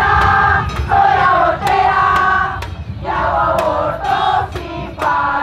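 A crowd of mostly women's voices singing a protest chant in unison, phrase after phrase with short breaks. Sharp percussive hits keep time under it.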